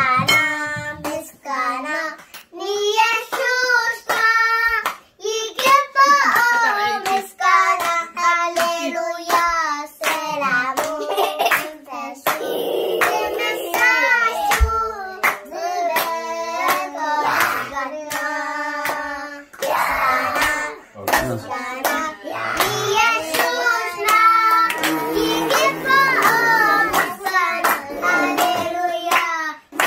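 Children singing a song together, with regular hand claps keeping the beat.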